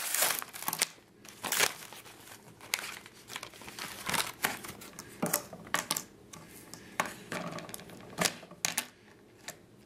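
Dart toy packaging crinkling and tearing in short, irregular bursts as it is opened.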